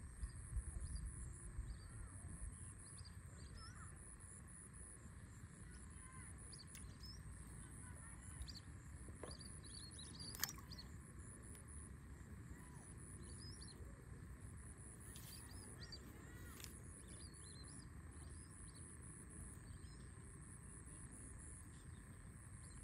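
Faint outdoor ambience: scattered short bird chirps over a steady high insect buzz and a low rumble, with a single sharp click about halfway through.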